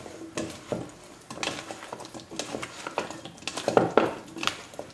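A spatula stirring diced potato salad in a stainless steel bowl: irregular soft scrapes and clinks against the metal, with a few louder knocks near the end.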